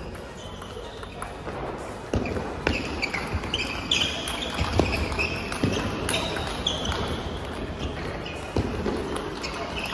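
Table tennis rally: the celluloid/plastic ball clicking off paddles and the table at an irregular pace from about two seconds in, with short high squeaks of shoes on the court floor.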